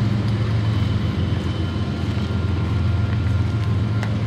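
Double-stack container freight train rolling steadily across a steel trestle, a constant low rumble of cars on the rails, with a sharp click near the end.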